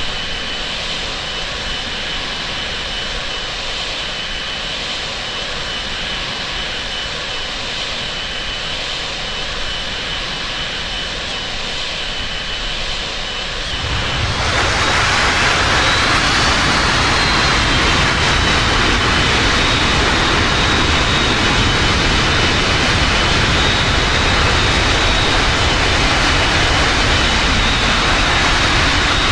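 Airliner's jet engines during landing: a steady hum with a thin whine, then about fourteen seconds in a sudden swell to a much louder roar as the whine rises and then holds steady.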